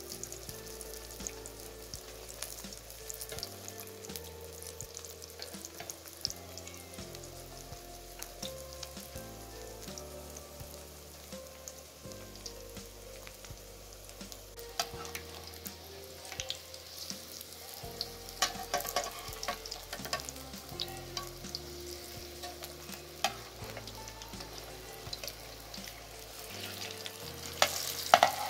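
Beef shami kababs shallow-frying in oil in a nonstick pan, sizzling steadily with scattered crackles. Near the end a metal spatula clinks and scrapes against the pan as the kababs are turned.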